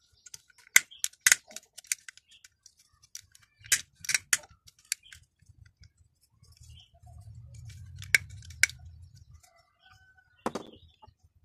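Hard plastic toy parts clicking and snapping as they are pressed and fitted together by hand. Sharp clicks come singly and in quick pairs, and a low rumble of handling runs through the middle.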